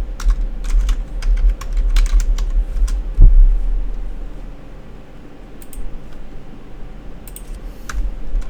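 Typing on a computer keyboard: irregular runs of keystrokes in the first three seconds, a few more near the end, with a single heavier thud about three seconds in. A low hum runs underneath.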